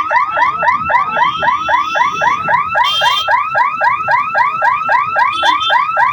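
Electronic level-crossing warning siren sounding a loud, fast repeating rising whoop, about four a second.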